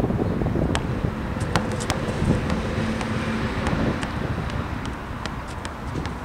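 Wind rumbling and buffeting on a camera's built-in microphone, with light, scattered knocks of a basketball being dribbled on an asphalt court.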